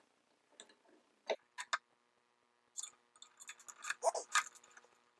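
Scattered light clicks and rattles of small metal hardware being handled as a nut is fitted onto a screw on a surface cleaner's spray bar, with a busier run of clicks in the second half.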